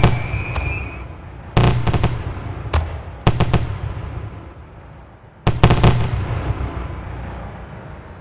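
A series of loud explosive bangs in clusters, each dying away in a long rumble.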